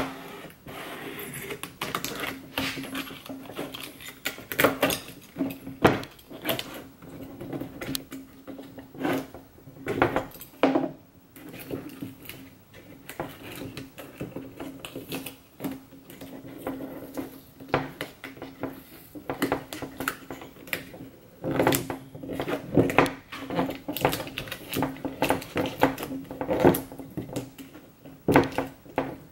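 Hands working carbon-fibre vinyl wrap onto a plastic center console trim piece on a wooden bench: rubbing and crinkling of the film and irregular knocks and clicks of the plastic part against the wood, over a steady hum.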